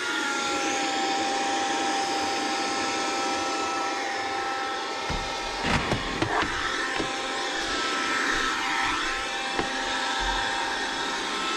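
Kärcher battery window vacuum running with a steady motor whine and hiss as its squeegee wipes condensation off the inside of a windscreen. A few light knocks about six seconds in.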